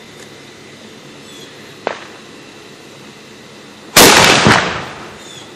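Homemade Samoan tube cannon (faga ofe) being fired: one loud bang about four seconds in, with a second crack half a second later and a fading tail.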